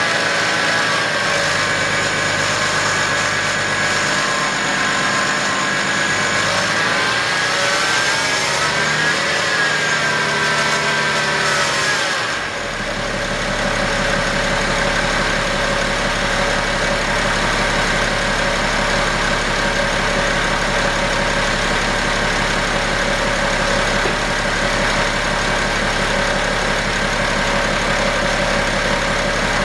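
2011 BMW X5 35d's six-cylinder turbodiesel running, with a whine from the bad idler pulley in the accessory belt drive. The whine's pitch dips and rises about eight to ten seconds in. About twelve seconds in the sound briefly drops and changes, and a steady low hum joins it.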